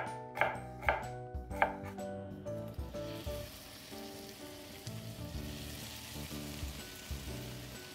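A knife chopping onion on a wooden cutting board, a few sharp chops in the first two seconds or so. From about three seconds in, minced onion sizzles in hot oil as it is tipped into a frying pan. Soft background music plays throughout.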